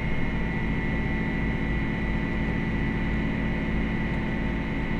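Farm tractor's diesel engine running steadily: a constant drone with a low rumble and several steady tones.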